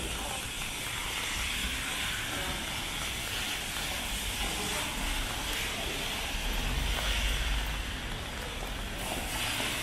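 Rainy city street ambience: a steady hiss of rain and wet traffic, with a low rumble of a passing vehicle swelling about seven seconds in.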